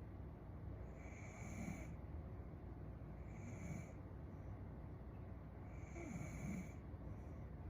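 A young woman snoring faintly in her sleep: three slow snoring breaths, about two and a half seconds apart.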